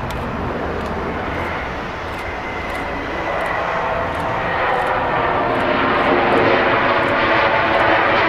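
CFM56 jet engines of a Boeing 737-700 rolling out just after touchdown: a steady rushing engine noise with a faint high whine, growing louder over the second half.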